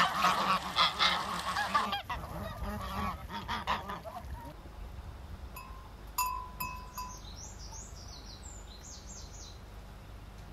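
A flock of farm geese honking loudly and continuously, dying away about four seconds in. Later a few short clear high notes and quick high chirps are heard over a quiet background.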